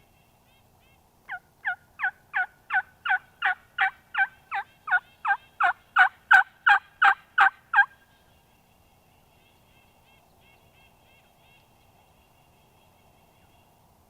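A run of about seventeen turkey yelps, about three a second, growing louder, then stopping abruptly.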